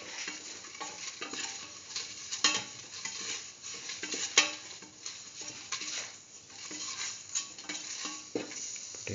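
Spatula stirring and scraping sliced onions and spices around a stainless steel pan, with sharp clinks against the metal now and then, the loudest about two and a half and four and a half seconds in, over a light sizzle of frying in oil.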